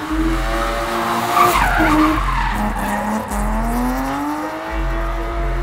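BMW E36 drifting: the engine revs up and down, its pitch falling and then climbing again, under a hiss of tyres skidding, with the loudest burst of tyre noise about a second and a half in.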